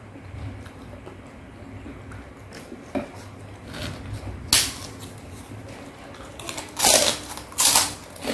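Close-miked eating sounds: a person chewing a mouthful of rujak cingur and lontong. There is a sharp click about four and a half seconds in, and two short, loud noises near the end as a torn piece of lontong goes into the mouth.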